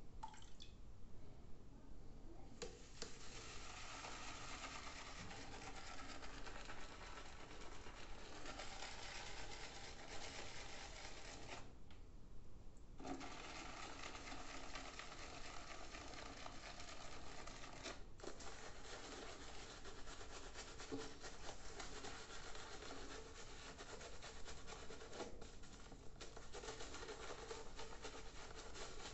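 Razorock Snowman synthetic shaving brush working shaving soap into a lather: a steady, wet rubbing with a short break about twelve seconds in. At the very end a Gillette Blue3 cartridge razor scrapes through lathered stubble.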